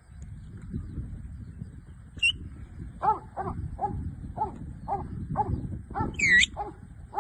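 Working sheepdog barking repeatedly, about two barks a second, starting about three seconds in, over a low rumble. A short high sliding call cuts through twice.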